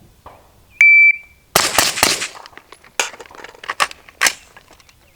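A shot timer's start beep, one short high steady tone, followed about half a second later by a fast string of gunshots, a brief pause, and several more shots as the shooter moves from rifle to pistol in a transition drill.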